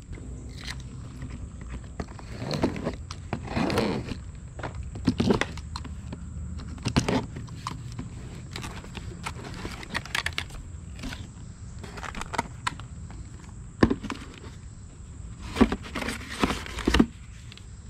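Cardboard box being handled and torn open: irregular rustles, scrapes and knocks as the flaps and inner packaging are pulled apart.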